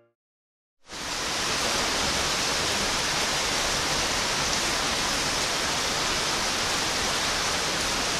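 Steady, even rushing noise that starts abruptly about a second in, after a short silence.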